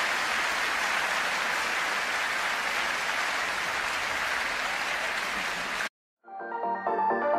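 Arena crowd applauding steadily after the match-winning point of a badminton final. The applause cuts off suddenly about six seconds in, and after a moment of silence electronic music fades in.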